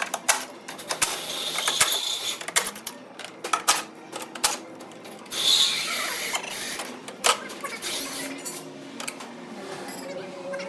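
Hand tools working on metal: irregular clicking and clanking, with two brief hissing bursts, about two seconds in and again past the middle.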